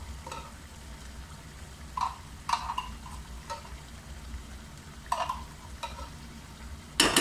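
Pasta sauce pouring from a tin can into a pan of chicken frying on the stove, the pan sizzling with several short splats as the sauce lands. A burst of sharp knocks near the end.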